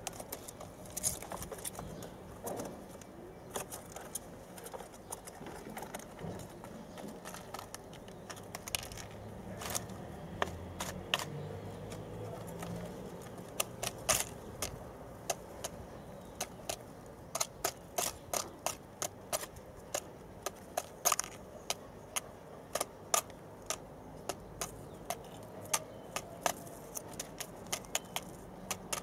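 Sharp, irregular clicks and taps from young white doves' beaks and feet as they peck and shuffle about in their nest bowl. The clicks come thicker in the second half.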